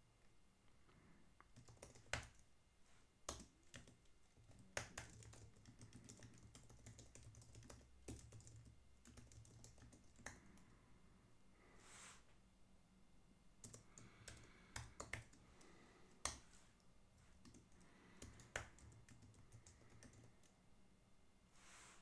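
Sparse, irregular keystrokes on a computer keyboard, a dozen or so short clicks spread a second or more apart, over a faint low hum.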